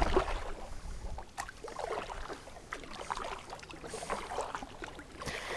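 Water splashing and lapping against a kayak in small irregular strokes, with a low rumble at the start.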